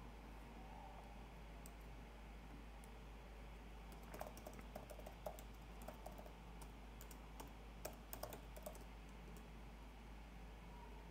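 Faint typing on a computer keyboard: a quick, irregular run of key clicks about four seconds in that stops about nine seconds in, over a steady low background hum.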